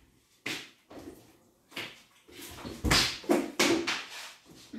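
Kitchen handling noises: a string of knocks, clatters and scrapes as a plastic bottle of drink is taken from the counter and cupboard, with one heavier thump about three seconds in.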